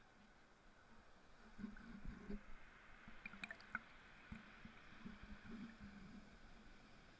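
Faint sloshing of shallow seawater around a camera held at the waterline, with irregular low knocks as the water slaps against it and a few brief clicks a little past the middle.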